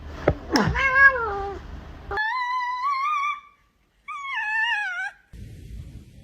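A cat meowing: a short falling meow, then two longer wavering meows, the last sliding down in pitch.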